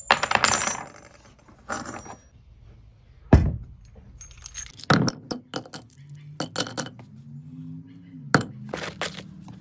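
Scrap brass pieces clinking and clattering as they are dropped into a crucible, some with a short metallic ring, with one heavier thump a little over three seconds in.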